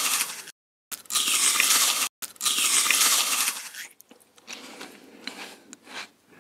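A burrito being bitten close to the microphone: loud crunching and crinkling of tortilla and paper wrapper, heard as three near-identical stretches broken by sudden cuts. It is followed by quieter, scattered chewing clicks.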